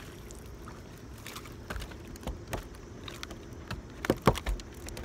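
Scattered knocks and thumps, loudest in a cluster about four seconds in, over a steady low hum.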